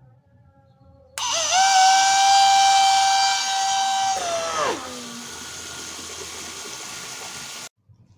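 Loud whistle-like tone that starts suddenly, holds a steady pitch for about three seconds, then slides down in pitch. A fainter steady tone follows and cuts off abruptly.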